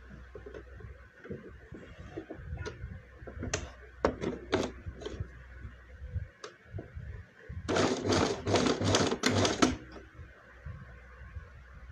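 Fabric being handled at a domestic sewing machine, with scattered clicks and knocks. About eight seconds in, the machine stitches slowly for about two seconds, giving a clicking stroke roughly four times a second as it begins a topstitching seam.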